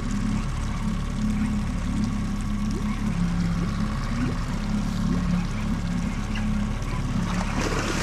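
Small outboard trolling motor running steadily at low speed, with water trickling and splashing at the stern. Near the end comes a burst of splashing as the hooked coho salmon thrashes at the surface beside the landing net.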